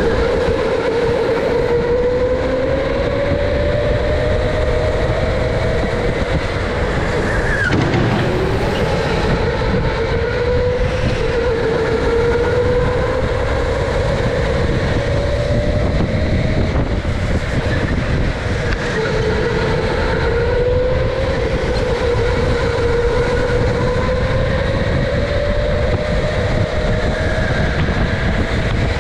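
Electric go-kart motor whining, its pitch climbing slowly as the kart gathers speed and dropping back twice when it slows for corners. Underneath is a steady low rumble from the kart running on the track.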